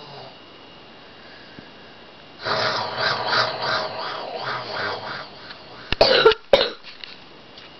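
A young girl sleeping through the flu, mouth open and congested. About two and a half seconds in comes a long fluttering snore lasting a few seconds, then two sharp coughs about six seconds in.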